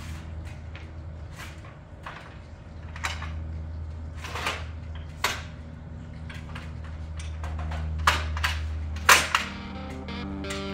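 Aluminium extension ladder knocking and clanking as it is handled and raised. There are scattered sharp knocks, the loudest few close together near the end, over a steady low hum.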